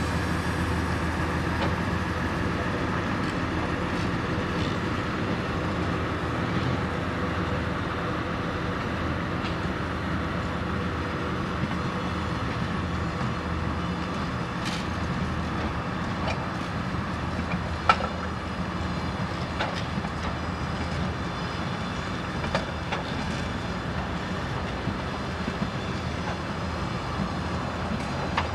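A DR1A diesel multiple unit, two sets coupled, rolling past with a steady rumble of engines and wheels on the track. Occasional clicks of wheels over rail joints come through, with one sharper knock about two-thirds of the way through.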